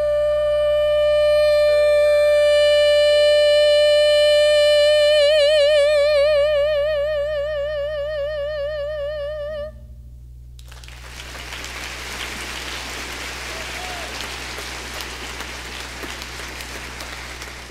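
A soprano holds the song's long final high note. Its vibrato widens over the last few seconds before it fades and stops about ten seconds in, and then the audience applauds.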